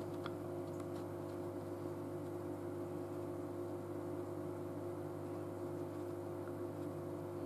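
Steady low hum made up of a few constant tones, like a running appliance or electrical hum in the room.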